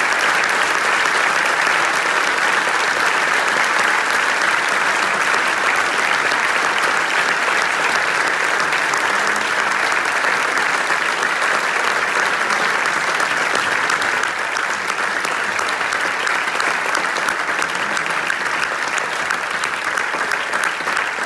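Theatre audience applauding, with the cast on stage joining in: dense, steady clapping that eases off slightly about two-thirds of the way through.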